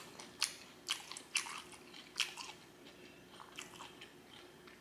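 Close-miked mouth chewing food, with short smacking clicks that come thick in the first couple of seconds and thin out after.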